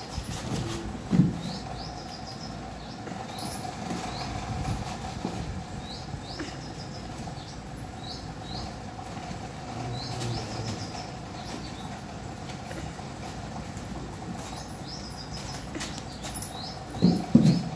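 Small birds chirping in short, high calls that repeat in little groups, over a steady hum. A dull thump comes about a second in, and a few more come near the end.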